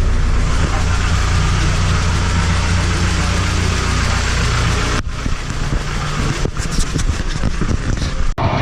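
Toyota Celica engine idling steadily, running again after its wiring was reworked. About five seconds in, the sound cuts abruptly to a less even stretch with scattered clicks.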